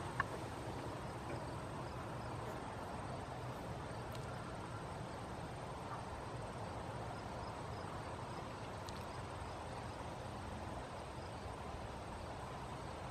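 Steady outdoor garden background with faint insect chirping, the sound of a summer flower bed. A single small click comes about a quarter-second in.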